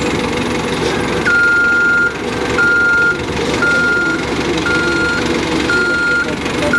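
Reversing-style warning beeper sounding a single high beep about once a second, starting about a second in, over a steady low machinery hum.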